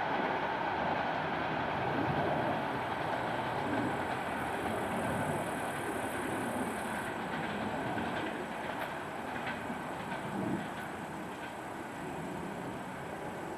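Train running along the track, a steady rolling rumble that slowly grows quieter, with a few faint clicks in the second half.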